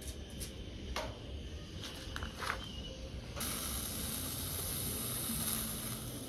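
Gas-heated soldering iron working a tin-soldered seam on copper sheet: a few light clicks in the first half, then from about halfway a steady high hiss.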